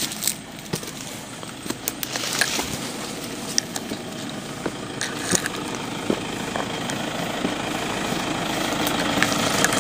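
A motor engine running steadily, growing louder through the stretch as it is approached. Scattered footsteps and rustling through brush sound over it.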